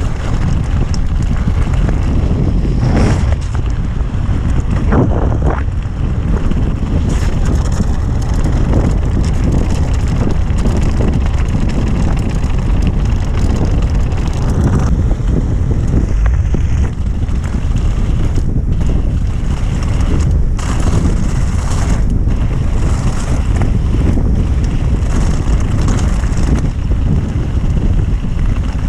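Wind rushing over the camera microphone with the rumble of a mountain bike riding over rough off-road trail, with scattered knocks and rattles throughout.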